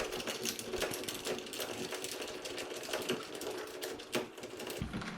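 Long mounting screws of a door handle being twisted in by hand: a quick, irregular run of small clicks and ticks.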